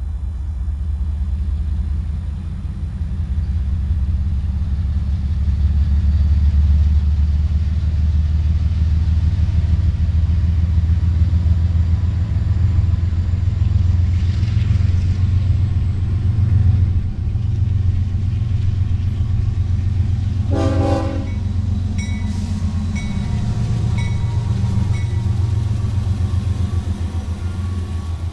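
Freight train led by a GE C45ACCTE diesel locomotive approaching and passing, with a steady low rumble throughout. About two-thirds of the way in comes a short blast on its Nathan K5HL horn, one of whose chimes is fouled.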